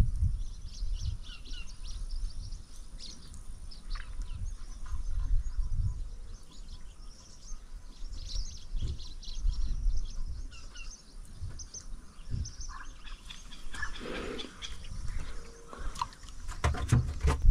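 Scattered bird chirps and calls throughout, over a low rumble with irregular dull knocks.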